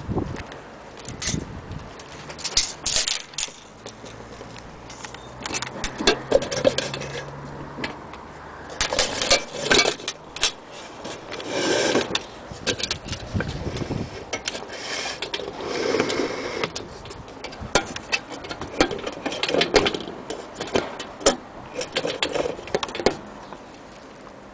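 Small hard metal parts clinking and rattling, with scrapes and knocks, in irregular bursts as something is handled.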